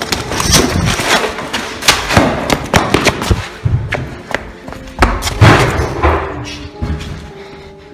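Hurried footsteps and irregular heavy thuds, with the handheld camera knocking and rustling as someone runs.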